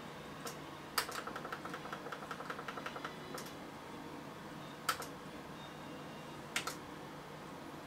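Computer mouse being worked: a click, then a quick even run of scroll-wheel ticks for about two seconds while scrolling a list, then a few single clicks and a quick pair of clicks near the end, all faint.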